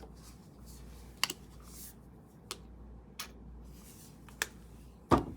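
Paintbrushes and painting tools being handled, making a handful of scattered sharp clicks and taps, with the loudest knock near the end.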